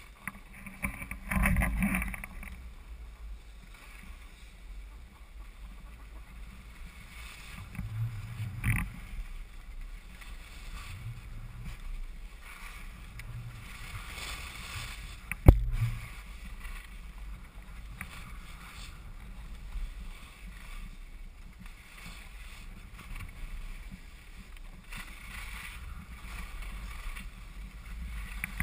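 Skis sliding on packed snow, with a swishing scrape surging on the turns over a steady low rumble. A single sharp knock about halfway through.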